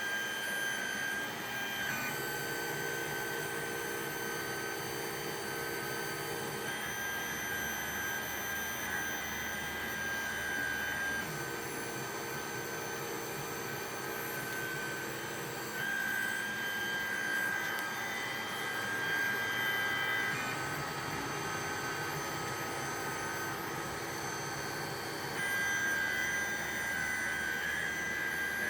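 Stepper motors of a Sherline mill set up for 3D printing, whining with several steady tones whose pitch changes every four to five seconds as the machine's moves change.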